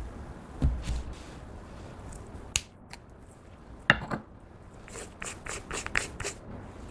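Sharp clicks and small snaps of something being handled close to the microphone: single clicks spaced out at first, then a quick run of clicks and crackles near the end.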